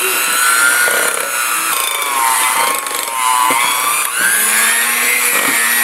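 Electric mixer beating butter and sugar to a cream, its motor whining loudly. The pitch sags a little in the middle and comes back up shortly after.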